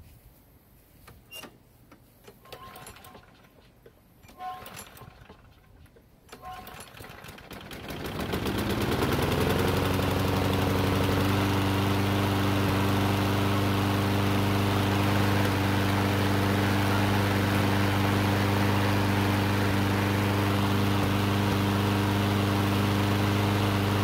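Craftsman push mower's Briggs & Stratton engine starting up about eight seconds in, after a few faint clicks, then running steadily at an even speed. It starts and keeps running now that the leaking air passage to the primer has been sealed with gasket maker.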